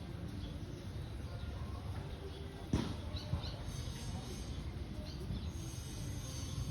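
A few faint, short bird chirps over a steady low rumble, with one sharp knock about three seconds in.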